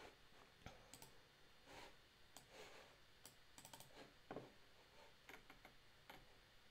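Faint, irregular clicks of a computer keyboard and mouse in use.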